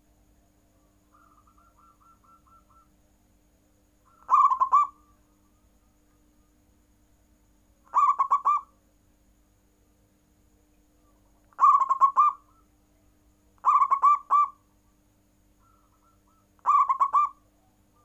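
Zebra dove (perkutut) singing: five short phrases of quick rolling coos, each about half a second long and a few seconds apart. A fainter run of quick notes comes about a second in.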